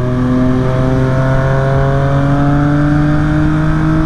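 2018 Triumph Street Triple R 765's inline-three engine with a Yoshimura exhaust, pulling under steady throttle, its pitch rising slowly and evenly as the revs build.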